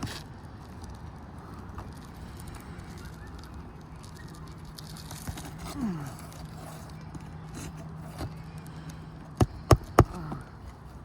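Three sharp knocks near the end from roofing work on an asphalt shingle roof, with a steady low hum underneath.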